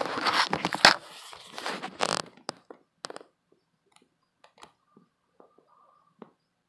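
Handling noise from a phone being moved close to the microphone, a rubbing rustle with a few sharp clicks in the first second or two, then only scattered faint clicks.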